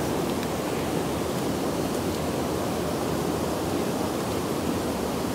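Steady rush of river water, with white water pouring out of a concrete spillway outlet.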